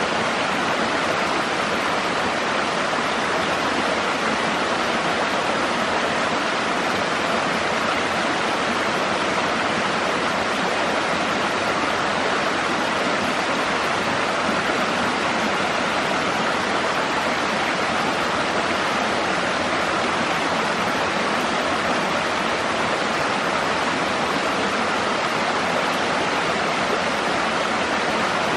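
Steady rush of water in a fast-flowing stream.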